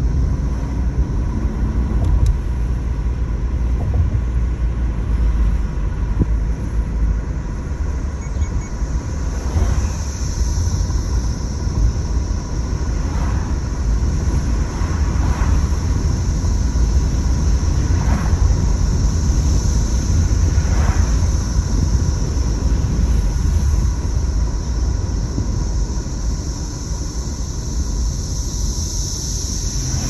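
Chorus of periodical cicadas, a steady high-pitched buzz that swells and fades several times, heard from inside a moving car over the louder low rumble of engine and road noise.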